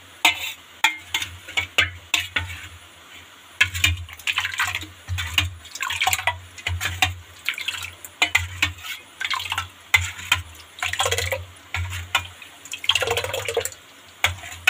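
Thick homemade curd being churned by hand with a small steel bowl in a large steel vessel, in place of a churning stick. It makes repeated wet stirring strokes, roughly two a second, with a short pause about three seconds in.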